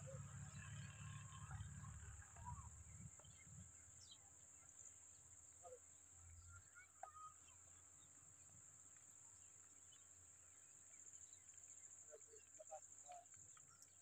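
Near silence with a faint, steady high-pitched insect drone, plus a few soft scattered chirps.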